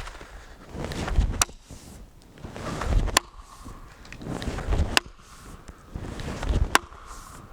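A steel chopping axe biting into a wooden log, four sharp blows at an even pace, about one every two seconds, with a short swell of sound before each blow.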